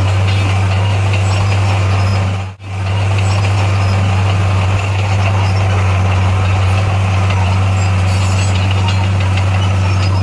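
Bulldozer diesel engine running at a steady, constant drone. The sound drops out for a split second about two and a half seconds in.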